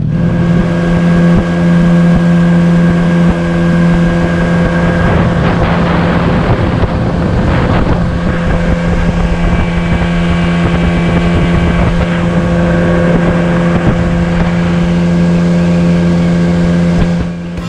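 Outboard motor of a small aluminium boat running at a steady high speed with the boat planing. Its drone holds one pitch throughout, over the rush of wind and water spray.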